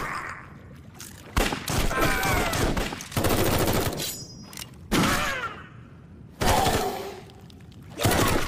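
Sound-effect gunfire: repeated volleys of gunshots and bursts of automatic fire, about six of them with short gaps between, each dying away.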